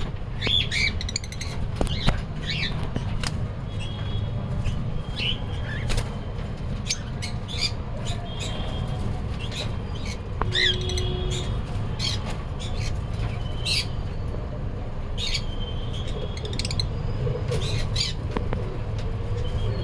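Small conures chirping in many short, sharp calls scattered throughout, over a steady low rumble.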